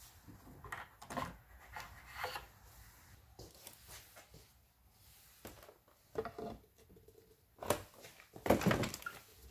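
Handling noises as a plastic funnel and tube are worked into the neck of a plastic fresh-water jug: scattered short knocks and rubbing, with the loudest clunks near the end.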